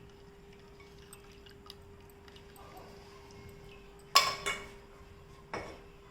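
Hot herbal decoction dripping faintly through a strainer, then a sharp clank of kitchen utensils about four seconds in, a second clink right after it, and a lighter knock a second later as the strainer and pot are handled.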